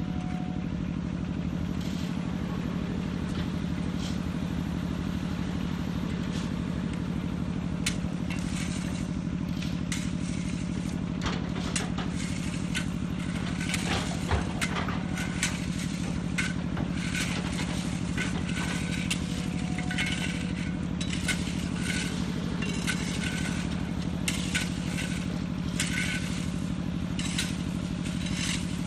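Volvo crawler excavator's diesel engine running steadily under load while its bucket scrapes and crunches soil on a slope face. From about eight seconds in, the scraping and clatter of falling soil grows busier.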